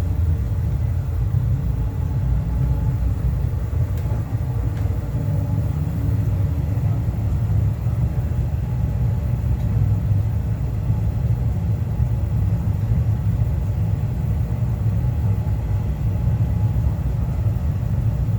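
Pump running steadily with a low rumble, pushing hot water into a newly installed CIPP sewer liner to cure and harden it.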